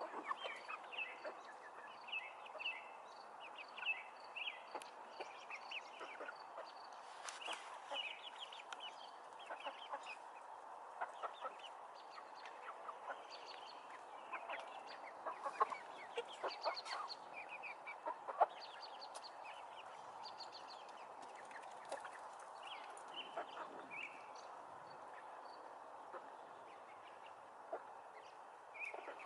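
A flock of hens clucking, many short calls overlapping throughout. A few sharp clicks stand out a little past halfway.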